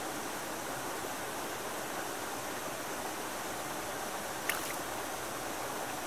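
Shallow mountain stream running steadily over rock, heard close to the water. A single brief sharp sound stands out about four and a half seconds in.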